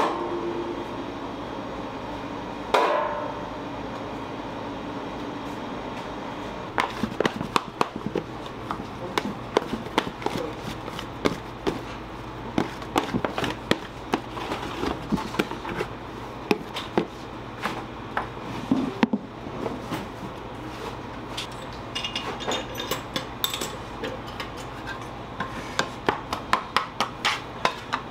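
Bread dough being shaped by hand at a bakery work bench: quick, irregular knocks and taps, several a second, over a steady hum. A single louder knock with a brief ring comes about three seconds in.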